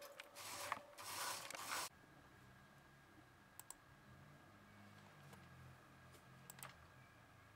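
Rustling noise for the first two seconds, cut off suddenly. Then, over a faint steady hum, two computer mouse clicks a few seconds apart, each a quick press-and-release double tick.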